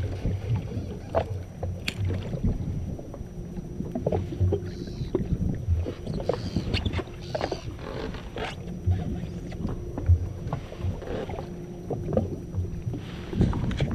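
Water lapping and slapping against the hull of a drifting jet ski, with irregular low thumps and scattered light knocks.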